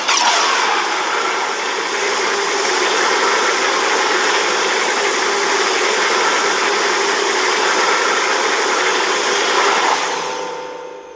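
Godzilla (2014) roar sound effect: one long roar held at a steady level for about ten seconds, then fading out near the end.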